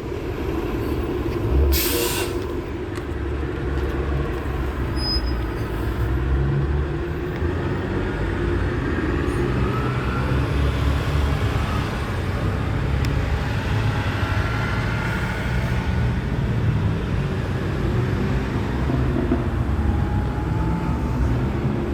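Vehicle noise: a steady low engine and road rumble, with a brief hiss about two seconds in.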